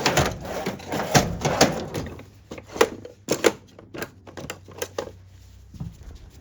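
Irregular clicks, clinks and knocks of hand tools and metal parts being handled, a few sharp ones close together around the middle, over a low steady hum.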